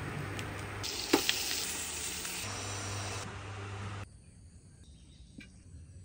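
Eggs frying in a pan: steady sizzling with one sharp pop about a second in. The sizzling cuts off suddenly at about four seconds, leaving a much quieter background.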